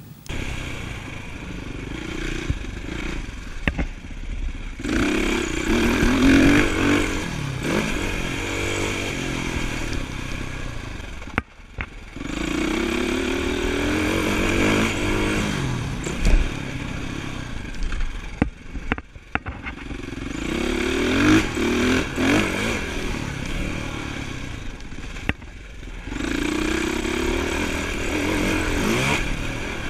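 Dirt bike engine heard close from a camera on the bike, revving in repeated climbs in pitch through the gears. The throttle snaps shut sharply three times and the engine picks up again each time.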